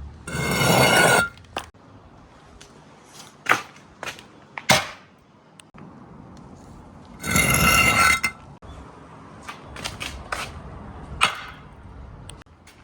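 Marbles running down a marble run's slopes: two rolling rushes, about a second long each, near the start and about seven seconds in, with a ringing tone. Many sharp clicks in between as marbles knock against the track and each other.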